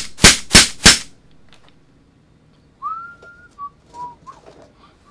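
Four quick gunshots from a pistol fitted with a suppressor, about a third of a second apart, the loudest sounds here. About three seconds in, a man whistles a few short notes.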